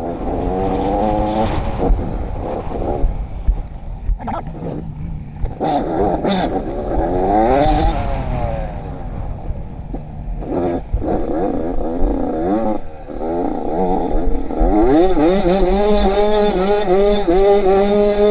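Quad bike engine revving up and down over and over while riding, over a steady low rumble of wind and ground, with a few clattering knocks from the machine; from about fifteen seconds in it holds a steady high rev.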